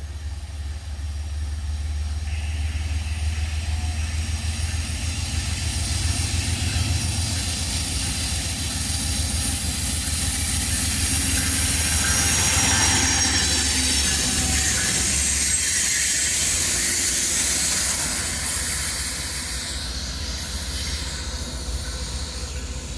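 A train rolling slowly past, with a low engine rumble, high wheel squeal and hiss. It grows louder to a peak about halfway through, then fades.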